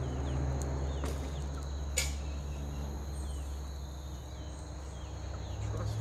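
Outdoor ambience: insects droning steadily in high, even tones, with a few faint short bird chirps over a low steady hum, and one sharp click about two seconds in.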